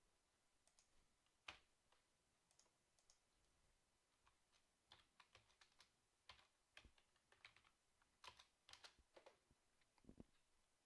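Faint typing on a computer keyboard: irregular key clicks, some in quick clusters.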